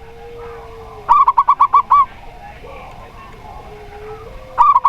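Zebra dove (perkutut) singing its fast run of loud staccato cooing notes, about seven in quick succession a second in and another run starting near the end. A lower, long drawn-out coo sounds beneath the runs.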